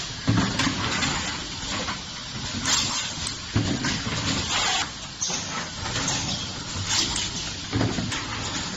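Automatic carton-erecting and liner-bag-inserting machine running: repeated hisses of compressed air with sharp clicks and knocks from its mechanisms, and a heavier thump about every three and a half to four seconds.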